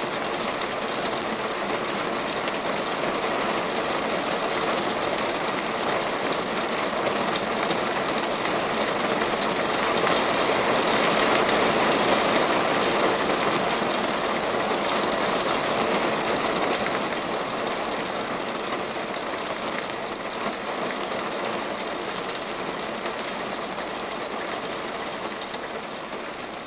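Heavy rain falling in a steady rush that swells to its loudest about halfway through and then slowly eases off.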